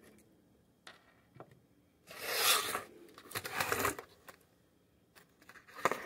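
Kitchenware being handled on a wooden table: a black plastic bowl holding a potato and a paper plate of chopped carrots are moved, giving two rubbing, scraping sounds about two and three and a half seconds in, with a few light knocks.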